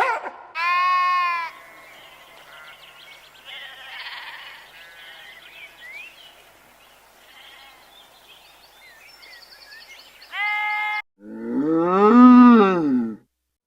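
A run of different animal calls: a short high call about half a second in, faint chirping through the middle, another short call near the end, then the loudest, a long call that rises and falls in pitch.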